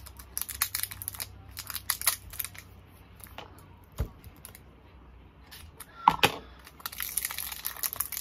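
Stiff, hard plastic wrapping crackling and crinkling as it is cut with a hobby knife and peeled off a wax candle: a run of sharp crackles, one knock about four seconds in, and denser crinkling near the end.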